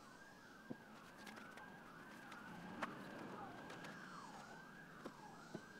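Faint siren wailing, its pitch rising and falling about twice a second, with a few light knocks.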